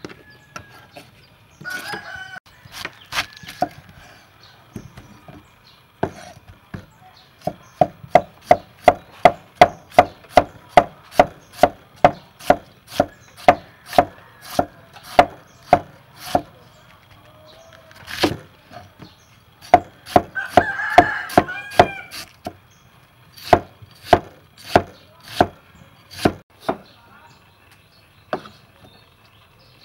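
A cleaver shredding red cabbage on a thick round wooden chopping block: sharp knocks, each with a short ringing tone. The knocks are scattered at first, then settle into a steady rhythm of about two a second from about seven seconds in, with a short break past the middle.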